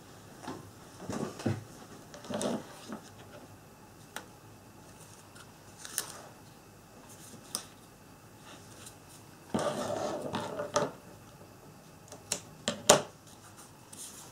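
Double-sided tape, card stock and scissors being handled on a cutting mat as tape is laid along a scored fold: scattered rustles and taps, a longer scraping stretch about two-thirds in, and a few sharp clicks near the end.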